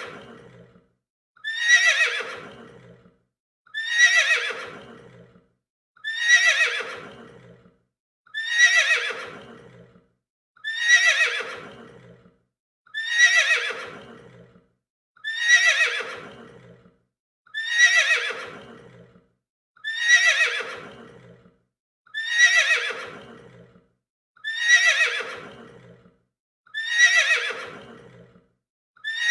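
Horse neighing: the same whinny repeated at even intervals, about every two and a quarter seconds, each call starting high and falling in pitch over about a second and a half.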